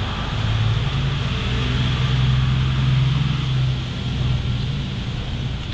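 Low, steady engine hum that swells about half a second in and eases off near the four-second mark, over an even hiss of rain.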